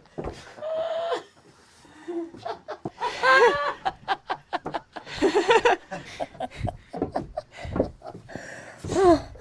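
Human laughter in several loud bursts, with short choppy laughing breaths between them.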